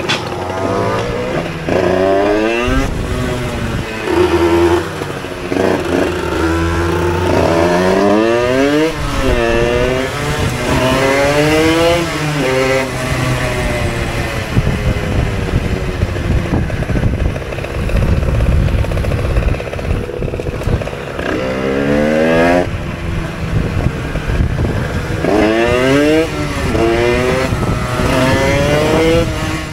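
Moped engine revving up in rising sweeps and dropping back several times as the bike accelerates and eases off, over steady road and wind noise.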